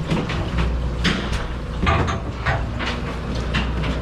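Scattered sharp clicks and knocks over the steady low hum of a party boat's idling engine.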